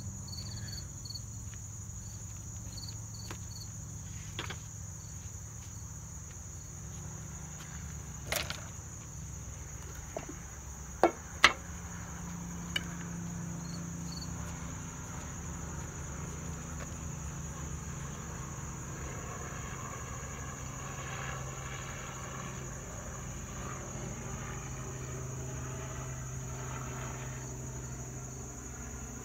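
A steady, high-pitched chorus of insects chirring over a low hum. A few sharp knocks come about eight and eleven seconds in, as the phone is handled and set in place.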